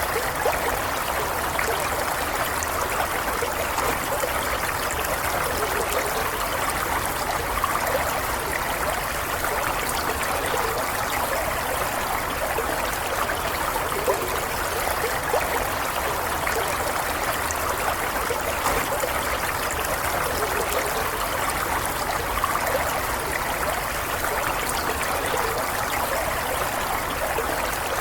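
Stream water running and gurgling steadily, an even, unbroken rush with no letup.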